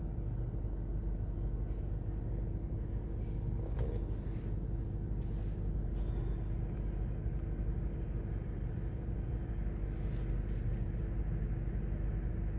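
A steady low mechanical rumble with a constant hum, like an idling engine or motor, with a few faint knocks now and then.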